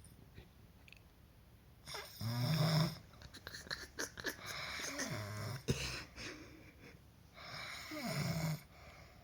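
Someone snoring: three long snoring breaths a few seconds apart. The middle one is a rattling flutter, and the first and last carry a deep drone.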